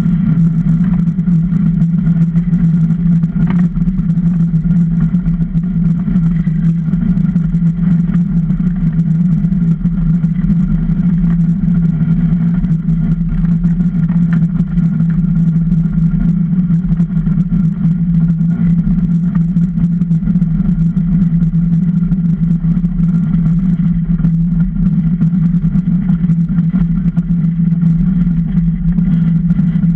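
Runners of a Super DN ice boat sliding fast over clear lake ice, carried through the wooden hull as a loud, steady low hum with a rushing hiss over it.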